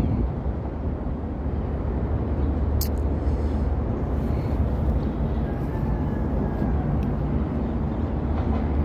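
Steady low outdoor rumble, with a single sharp click about three seconds in.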